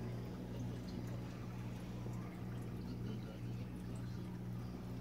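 Steady electrical hum of an aquarium's running equipment, with water trickling and dripping through the sump filtration.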